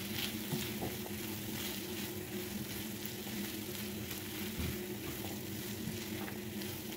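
Githeri stew of maize, beans, beef and green capsicum sizzling steadily in a frying pan as a slotted spatula stirs it, with a few light scrapes and taps of the spatula against the pan.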